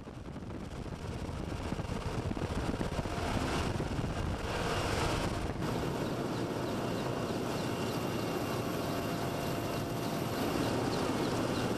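Helicopter engine and rotor noise, steady, with a thin whining tone over it, fading in during the first couple of seconds.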